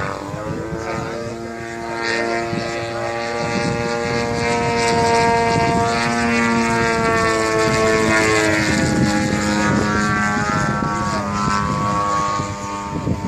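Engine and propeller of a large radio-controlled Yak 54 model aerobatic plane with a 120 cc engine, running hard in flight. The pitch rises right at the start, the sound grows louder over the first few seconds, and the pitch shifts slightly lower about eight or nine seconds in.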